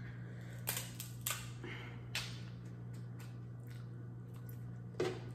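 Kitchen shears snipping and cracking through a cooked crab leg's shell: a few sharp, uneven snaps over a steady low hum.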